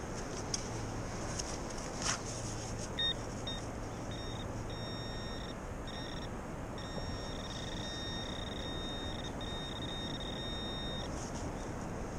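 Garrett Pro-Pointer AT pinpointer sounding a high-pitched tone as it is worked over a buried target. The tone starts as a few short beeps about three seconds in and grows into longer, almost unbroken stretches, the sign of the probe closing in on the metal. It stops shortly before the end, over a steady background hiss.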